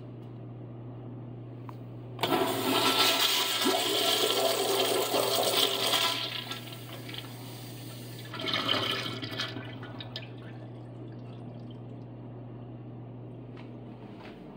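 Kohler Dexter urinal flushing through its flushometer valve: a sudden rush of water begins about two seconds in and runs for about four seconds. A shorter second surge follows, then the flow dies away as the valve shuts.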